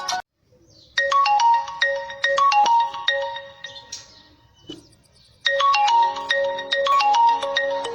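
Vivo V20 stock ringtone: a melody of short, bright notes that cuts off abruptly just after the start, then plays its phrase again from about a second in, fades away, and starts over about five and a half seconds in.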